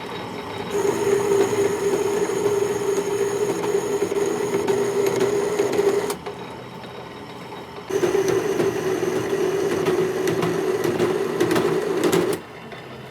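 A workshop machine or tool runs in two spells of about five and four seconds, each starting and stopping abruptly, with a steady buzzing tone. A quieter steady machine hum continues underneath.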